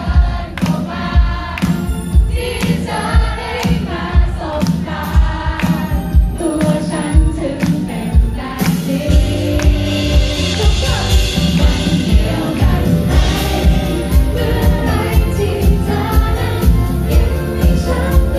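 Live pop band playing: a woman singing into a microphone over electric guitar and drums with a steady beat, cymbals washing in briefly about halfway through.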